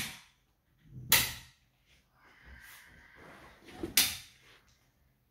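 Steel-framed glass loft door being worked by hand at its top and bottom bolts: three sharp knocks, one right at the start, one about a second in and one about four seconds in, with a faint scraping between the second and third.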